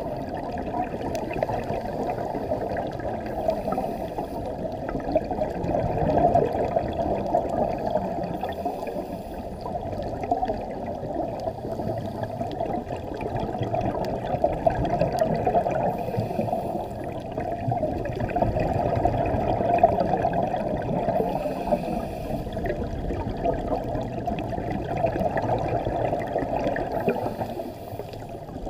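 Underwater sound heard through a camera's waterproof housing: a scuba diver's exhaled bubbles rushing and gurgling, muffled, swelling and fading every five or six seconds with the diver's breathing.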